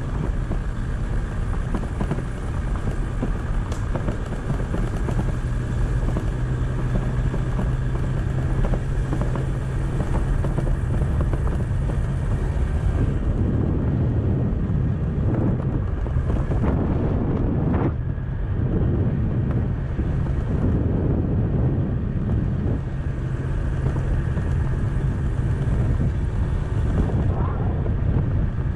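Kymco's engine running steadily while riding, its low note held throughout, with wind and road noise.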